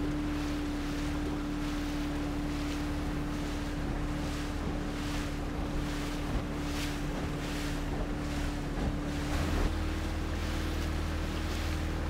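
Small motorboat under way: a steady engine drone, with water rushing and slapping along the hull and wind buffeting the microphone. The engine note shifts slightly about ten seconds in.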